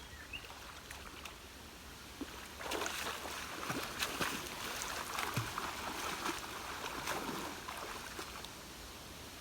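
Water sloshing and splashing, louder from about two and a half seconds in.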